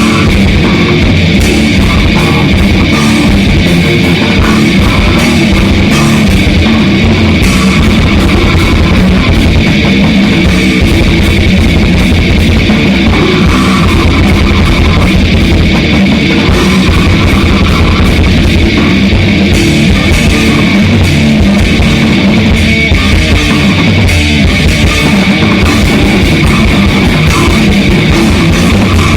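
Grindcore band playing in rehearsal: electric guitars and drum kit, loud and dense without a break.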